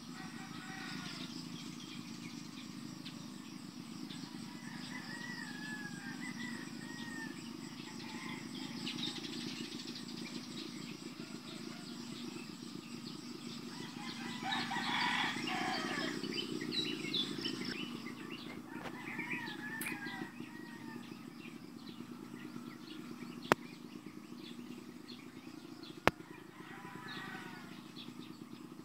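Morning rural birdsong: small birds chirping on and off, with a rooster crowing about halfway through over a steady low hum. Two sharp clicks come near the end.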